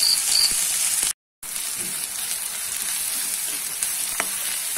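Chopped onion and curry leaves sizzling steadily as they fry in hot oil in a pan, stirred with a spatula. The sound drops out briefly about a second in, and there are a few light spatula ticks near the end.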